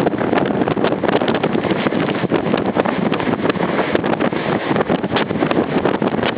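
Strong wind from an approaching typhoon blowing hard across the microphone: a loud, continuous rushing that surges and flickers in gusts.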